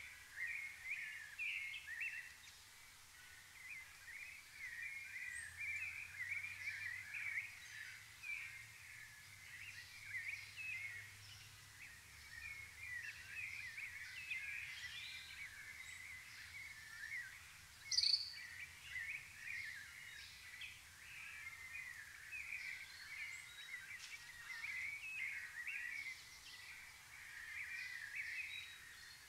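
Birds chirping continuously, a busy overlapping twitter, with one louder, higher call about eighteen seconds in.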